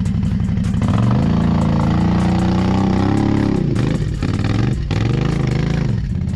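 ATV engine working under load as the quad climbs a soft sand and mud slope. The revs rise about a second in and hold high, then dip and surge several times before picking up again near the end.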